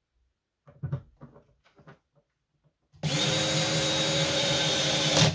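Handheld power drill running steadily for a little over two seconds, starting about three seconds in and stopping abruptly, driving a screw to fasten a part onto a plastic kayak crate. Before it, a few light knocks of plastic parts being handled.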